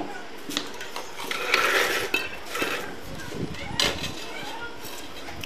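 Light knocks and clicks of hands and a tool on a freshly laid large floor tile as it is set and levelled, with a short scrape about a second and a half in.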